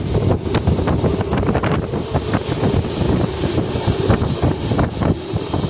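Hurricane-force wind in Hurricane Helene's outer eyewall, blasting over the microphone as a loud, steady rush with many sharp crackles throughout.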